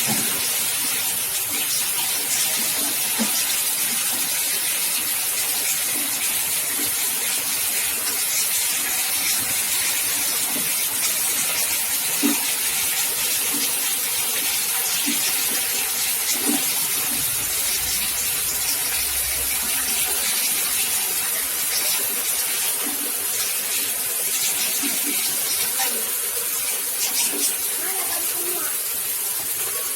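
Candlenut-cracking machine running: a steady, loud hiss with scattered light ticks throughout.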